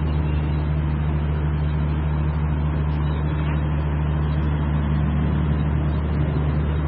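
Steady low hum of a running engine, unchanging throughout.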